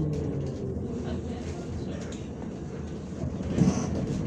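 Ride noise inside a MAZ-105 articulated city bus under way: a steady low rumble of engine and road. About three and a half seconds in comes a brief louder burst with a hiss.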